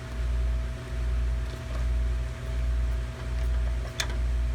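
Steady low machine hum from the walk-in freezer's refrigeration equipment, wavering in level a little more than once a second, with a single sharp click about four seconds in.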